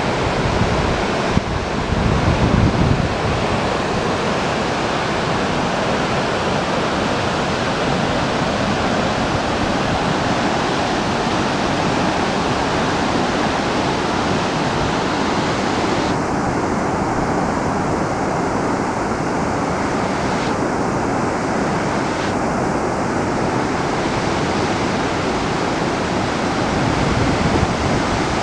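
Steady rush of water from a 200-metre waterfall, with gusts of wind buffeting the microphone in the first few seconds.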